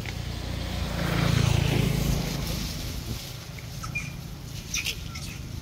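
A motor vehicle passing by: a low engine rumble and road noise that swell to a peak about a second and a half in, then fade away.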